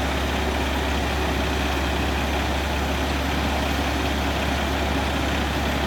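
Combine harvester's engine running steadily, a constant low hum with mechanical noise over it.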